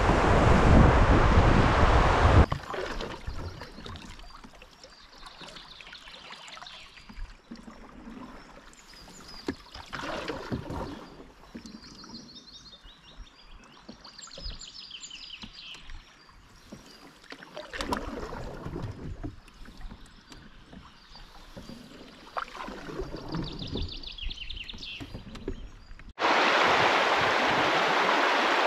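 Wind buffeting the microphone over rushing water as a canoe runs a riffle past bridge pilings, cut off suddenly after about two seconds. Then a quieter stretch of soft water sounds with a few splashes and high bird chirps. Near the end the steady rush of a flowing river starts abruptly.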